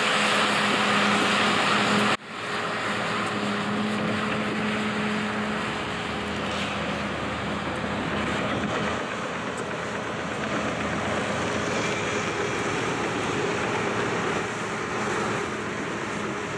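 Heavy diesel equipment engines running steadily, a constant drone over a broad rushing noise. The sound breaks off sharply about two seconds in and picks up again at once.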